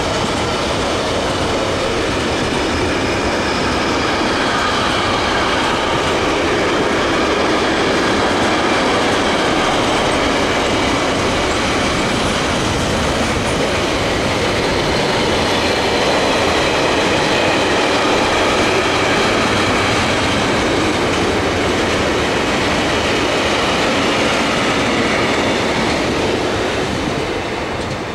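Container wagons of an intermodal freight train rolling past at speed: a loud, steady noise of wheels on rail with faint high tones above it, dying away near the end as the last wagon passes.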